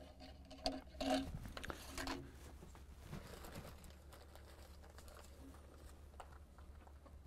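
Faint rustling and light clicks of a rifle cleaning rod and cloth patches being handled, mostly in the first couple of seconds, over a steady low hum.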